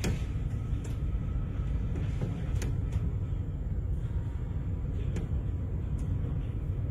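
Steady low rumble heard inside a ferry's passenger deck during a rough sea crossing, with a few sharp clicks and knocks scattered through it.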